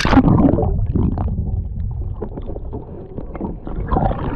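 Action camera plunging into lake water with a splash, then muffled underwater rumbling and small clicks picked up by the submerged camera's microphone.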